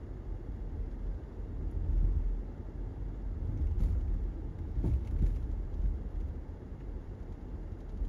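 Low, uneven rumble of a car driving on the road, tyre and engine noise mixed with gusty wind noise, with a few faint clicks about halfway through.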